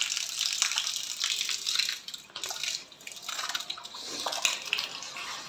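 Water spilling from a full tank's overflow pipe and splashing down a tiled wall onto the floor: the tank has filled and is overflowing while the pump is still on.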